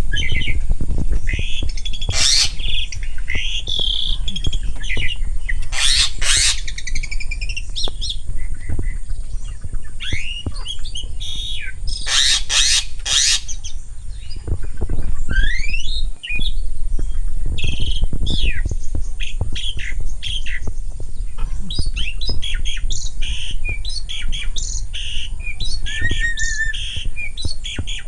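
A pair of jalak starlings calling: loud harsh squawks mixed with whistles and chirps, the loudest screeches about two, six and twelve seconds in, and a quicker run of chirping and whistling in the last third.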